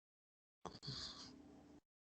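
Brief kitchen handling noise: a sharp click or two, then about a second of clattering rustle, between stretches of dead silence.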